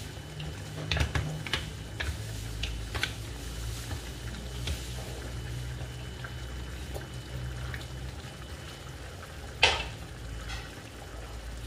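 Mussels and water spinach simmering in broth in a nonstick pan, over a steady low hum. Shells and spatula clack against the pan a few times in the first three seconds, and one sharp knock comes near the end.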